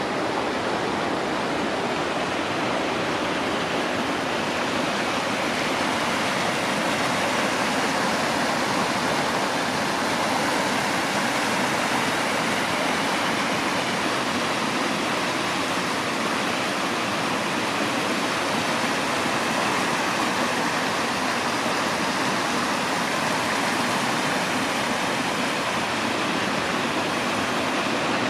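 A steady, unbroken rushing noise with no pauses or changes, like a stream or waterfall.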